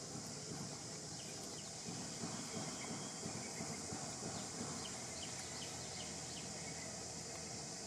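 Steady outdoor background: an even high hiss with faint scattered clicks and rustling, and no clear single event.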